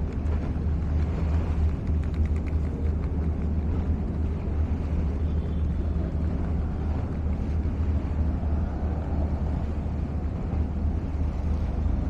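Steady low engine drone, even in level throughout, under a wash of outdoor noise.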